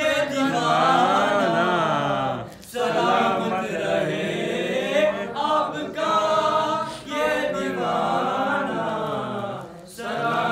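Men singing an unaccompanied Urdu manqabat, a devotional song in praise of a Sufi saint, with a lead male voice in long, winding phrases and short breaks between them.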